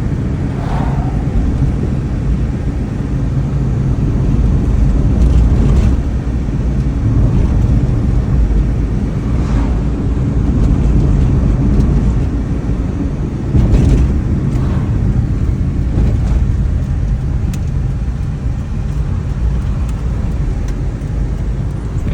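Steady road noise of a moving car: a continuous low rumble of engine and tyres.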